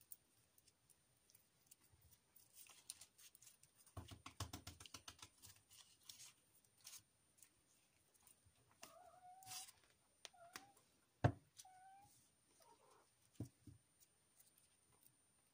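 Quiet handling of a wire stem and floral tape: soft rustles and clicks, busiest about four seconds in, with one sharp click a little past the middle. Between about nine and thirteen seconds in come four short pitched animal calls, each under a second.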